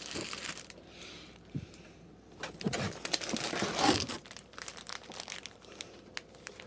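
Plastic packaging around a folded polyester flag crinkling and rustling as it is handled, in two bursts, the second about two and a half seconds in.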